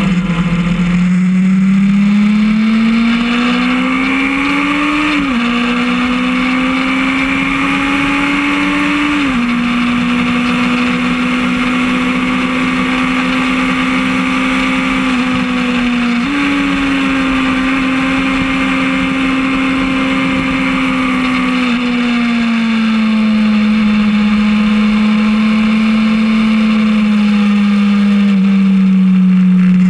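Motorcycle engine heard from onboard at track speed under a steady rush of wind: it revs up and shifts up twice in the first ten seconds, then holds a steady note. About sixteen seconds in it drops a gear with a sudden rise in pitch, and then it winds down slowly as the bike slows.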